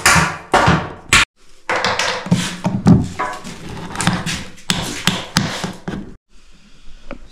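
Hammer and nail-puller knocking on old wooden baseboards as they are pried off: a run of sharp knocks several a second, cut off abruptly about a second in, then more irregular knocks and taps that stop suddenly near the end.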